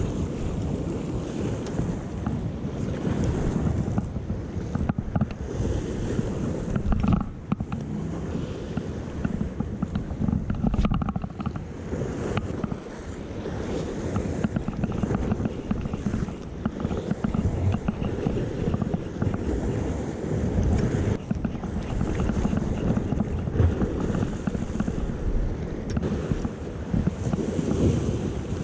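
Wind buffeting the microphone in uneven gusts, over the wash of sea waves breaking against a rocky shore.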